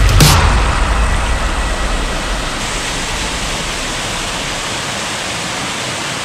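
Steady rush of falling water from a waterfall, a constant hiss-like roar without rhythm, easing slightly over the first couple of seconds and then holding even.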